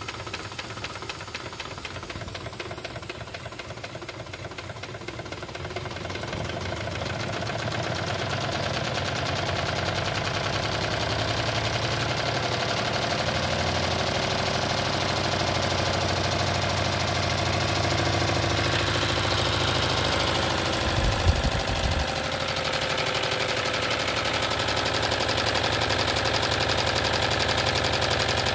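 Wilesco D32 model live steam engine running steadily: a fast, even mechanical beat of the piston and valve gear with a hiss of steam, growing louder about six seconds in. A brief thump just past two-thirds of the way through.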